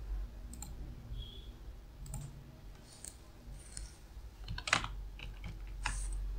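Computer keyboard typing and mouse clicks: a few scattered clicks, then a quick run of keystrokes about four and a half seconds in.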